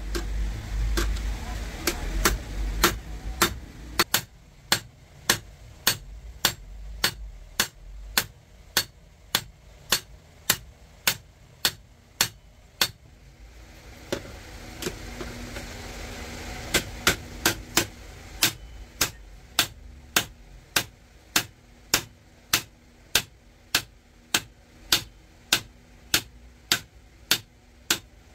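Hammer striking metal in steady, evenly spaced blows, about two a second. A low rumble runs under the first few seconds.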